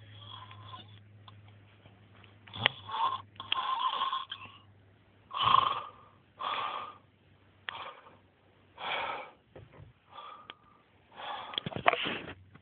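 Men snoring in deep sleep after drinking: about nine irregularly spaced snores and noisy breaths, some short and some drawn out for about a second. A steady low hum runs under the first half and then fades.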